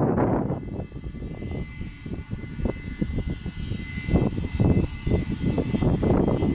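Wind buffeting the microphone in gusts, a low rumbling noise that swells and drops, with a faint steady high tone underneath.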